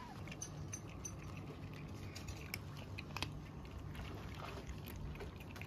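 Several kittens crunching dry kibble, with scattered sharp crunches and clicks.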